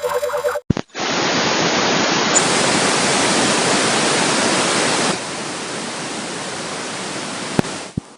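A short repeating electronic tone pattern cuts off with a click. A steady hiss of static-like noise follows and drops noticeably in level about four seconds later. It ends abruptly after another click.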